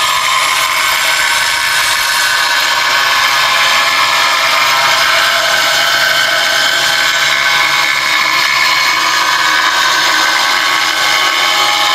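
Angle grinder cutting through a floor tile: a loud, steady high whine with the gritty noise of the disc in the tile, unbroken throughout.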